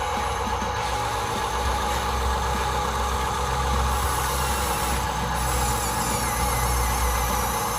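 Steady engine-like idling hum from a remote-control construction vehicle, with faint high whines that rise and fall in the second half.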